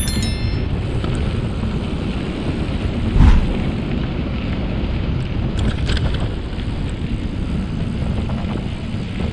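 Wind buffeting the microphone of a mountain biker's camera while riding, a steady rumble. A short high ringing note at the very start and one heavy knock about three seconds in.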